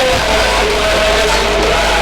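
Loud music played through a DJ sound system during a sound check, a melody over a heavy, steady bass.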